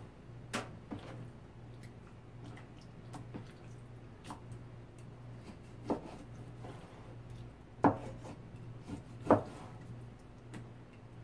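Cleaver chopping raw boneless chicken into chunks on a plastic cutting board: irregular sharp knocks of the blade hitting the board, a few seconds apart, with quieter slicing and rubbing between them.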